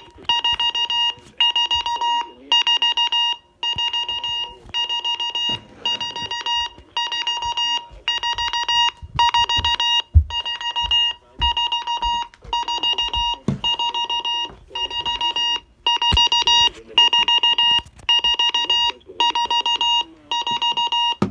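RadioShack 12-382/261 alarm clock's alarm sounding: a shrill electronic beep that pulses rapidly in bursts about a second long, repeating with short gaps between. A few soft thumps come through now and then.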